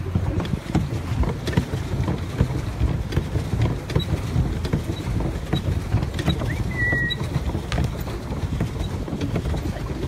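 Steady low noise of a small boat under way on open water, with scattered small clicks. One short high bird call sounds about seven seconds in.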